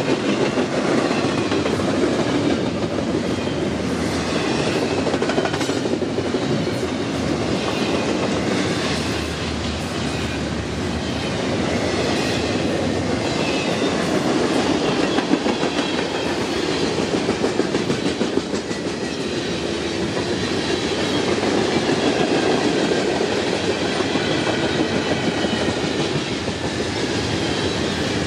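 A long freight train passing at speed: steel wheels rolling and clattering over the rail joints in a steady, continuous rumble, with faint high ringing from the wheels that comes and goes.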